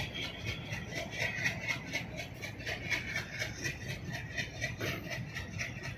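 Loaded BOBYN hopper wagons of a freight train rolling slowly along the track: a low rumble of wheels on rail with a steady, rapid rattle, about six a second.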